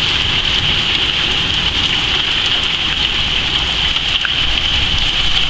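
Heavy rain pouring down in a thunderstorm: a steady, dense hiss with scattered drop ticks.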